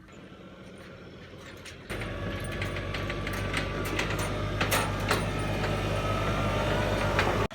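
Machinery running with a steady low hum and metallic rattles and clanks. It comes in sharply about two seconds in and stops abruptly near the end, after faint ticking at the start.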